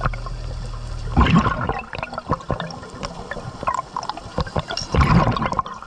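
Scuba diver's exhaled breath bubbling out of the regulator underwater, gurgling in two surges: about a second in and near the end. Many small clicks and pops are scattered throughout.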